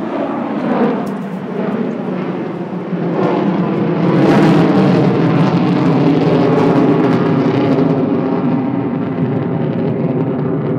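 Fixed-wing aircraft flying over, its engine noise building to a peak about four seconds in and staying loud before easing slightly.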